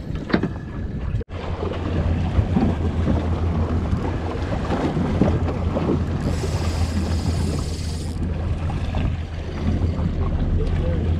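Wind buffeting the microphone and sea water around a small boat, a steady rumbling hiss. About six seconds in, a high-pitched whirr joins for about two seconds.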